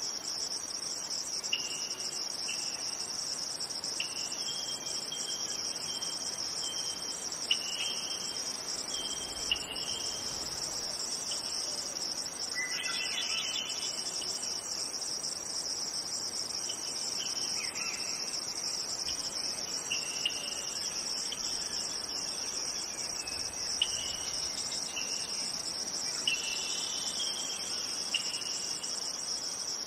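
Insect chorus: a steady high trill that never breaks, with short chirps scattered over it.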